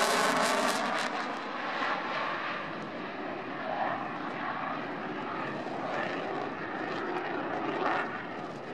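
Dassault Rafale fighter's twin M88 turbofans in afterburner, a loud jet roar with a sweeping, phasing tone at first that fades steadily as the jet draws away.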